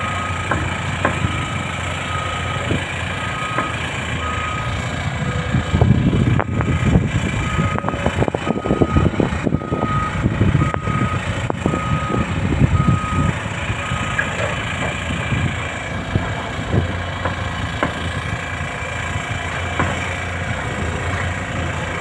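Heavy construction machinery's diesel engines running, with a construction vehicle's reversing alarm beeping about once every two-thirds of a second until it stops about two-thirds of the way through. The machinery gets louder in the middle, with clanks.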